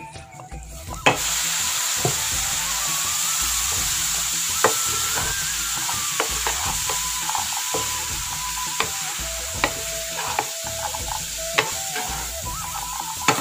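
A glass pan lid is lifted off with a sharp clink about a second in. Then vegetables and black chickpeas sizzle steadily in the nearly dry pan while a wooden spatula stirs them, knocking against the pan now and then. The sizzle shows the cooking water has run low.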